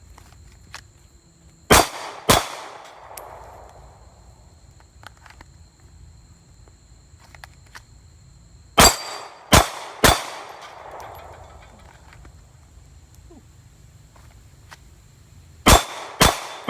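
Glock 23 Gen 4 pistol firing .40 S&W in three quick strings: two shots about two seconds in, three shots around the middle, and two more near the end. Each shot is followed by a short echo.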